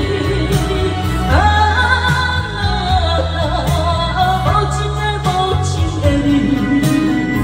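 A Taiwanese Hokkien pop ballad played from a karaoke backing track. A melody line slides up into held notes over a steady bass and beat.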